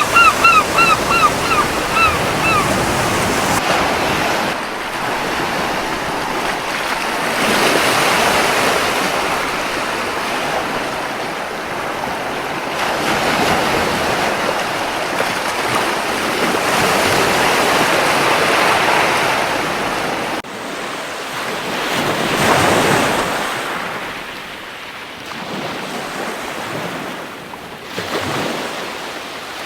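Waves breaking and washing up a beach, the surf swelling and easing every several seconds. A gull gives a quick string of about seven short calls in the first few seconds.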